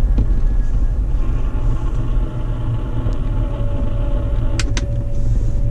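Steady low road and drivetrain rumble of a moving Jeep Wrangler, heard through a Steelman wireless chassis ear receiver's speaker as it relays the clamp on the front bumper, picking up little of the whine being hunted; a steady tone comes in partway through. Two sharp clicks close together near the end as the receiver's channel-select button is pressed.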